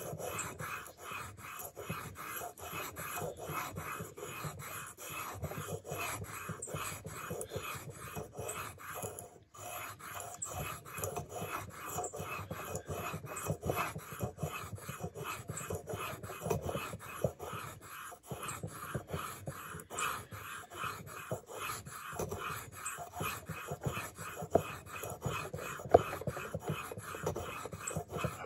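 Leatherman PST knife blade being stroked back and forth on a sharpening stone, a steady rhythm of rasping strokes, a few a second, with short breaks about nine and eighteen seconds in.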